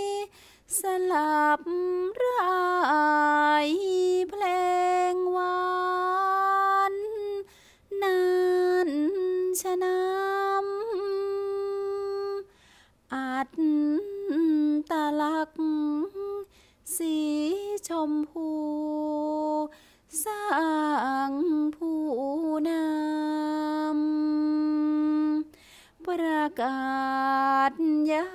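Thai sepha recitation: a single voice chanting verse in long held notes that waver and slide between pitches, in phrases of a few seconds broken by short pauses for breath.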